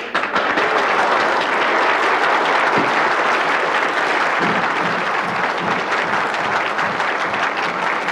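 A large audience clapping: loud, dense, steady applause.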